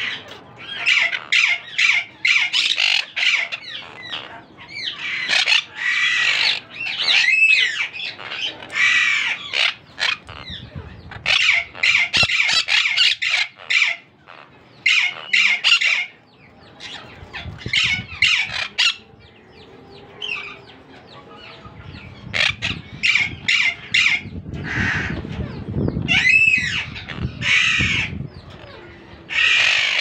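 Parrot squawking: harsh, repeated calls in short clusters with brief pauses between them.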